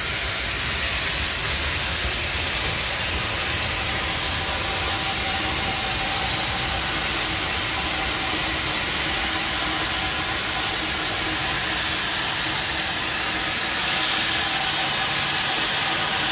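Steady hiss of escaping steam from a narrow-gauge NGG11 Garratt steam locomotive, with no exhaust beat; the hiss turns a little brighter near the end.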